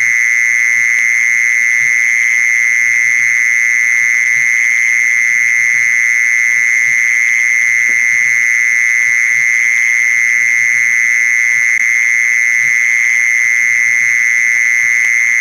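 Mole cricket singing: a male's calling song, one unbroken high trill around 2 kHz at an even level.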